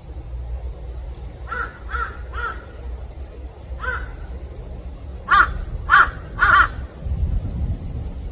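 A crow cawing: three quick, fainter caws, a fourth a moment later, then three loud caws about half a second apart, over a steady low rumble.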